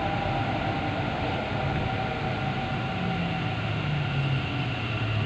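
Metro train heard from inside the carriage as it slows into a station: a steady rumble and running noise with a faint motor whine, the lowest hum sinking slightly in pitch after the middle.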